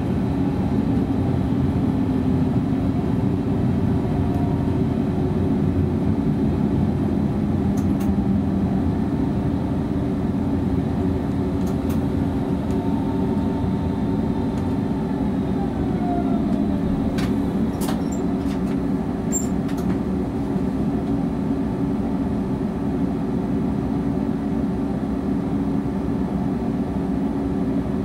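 Berlin S-Bahn electric train running along the track, heard from inside the driver's cab: a steady rumble of wheels on rails. Partway through, a whine falls in pitch, and a few sharp clicks come near the middle.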